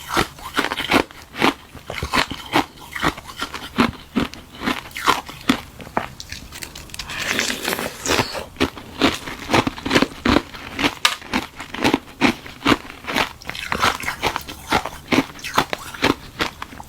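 Close-miked biting and chewing of crunchy ice frozen from tartary buckwheat tea: rapid sharp crunches, several a second, with a softer grinding stretch about seven seconds in.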